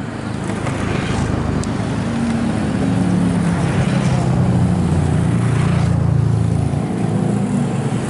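A motor vehicle's engine running nearby, a low rumble that grows louder over the first few seconds and eases slightly near the end.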